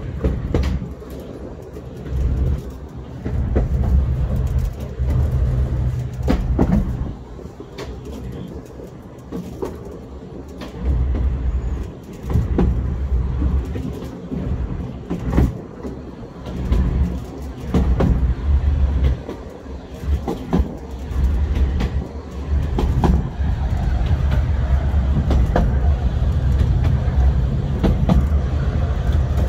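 Park ride train running along its narrow track: a low rumble that swells and eases every few seconds, with scattered clicks and knocks from the running gear and rails.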